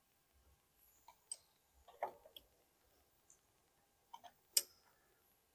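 Faint, irregular metal clicks and taps of a half-inch wrench on the bolts that hold the spindle assembly, as they are tightened: about nine in all, the sharpest a little past four and a half seconds in.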